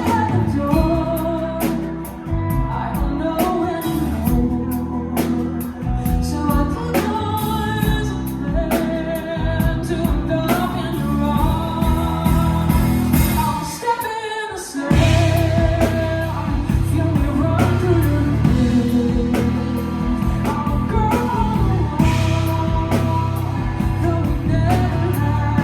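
A song performed with a band: a sung melody with vibrato over drums and bass. The band drops out briefly about fourteen seconds in, then comes back fuller.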